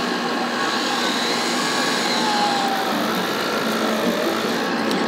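Small electric drive motors of a radio-controlled Liebherr R 944 excavator model whining, the whine drifting in pitch as the machine tracks and slews. Under it runs a steady hum of exhibition-hall noise.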